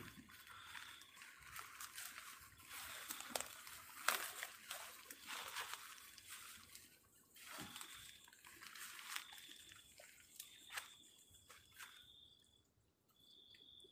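Footsteps crunching and rustling through dry leaves and bamboo litter in irregular crackles. Behind them a high, even-pitched call repeats in short bursts.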